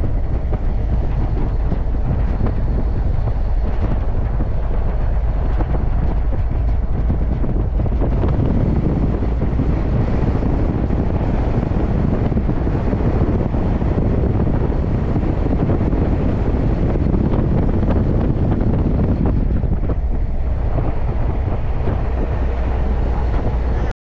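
Wind buffeting the microphone over the steady running noise of a moving vehicle on the road.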